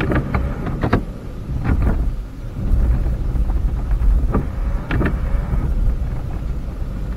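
Four-wheel-drive vehicle creeping through snow in four-wheel drive low, heard from inside the cab: a steady low engine and drivetrain rumble with several sharp knocks and clicks.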